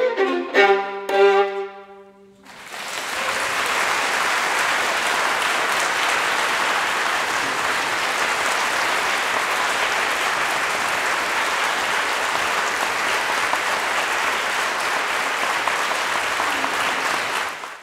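Two violins play a few short, loud closing chords, the last one held and fading after about two seconds. After a brief pause, an audience breaks into steady applause that swells within a second and keeps going.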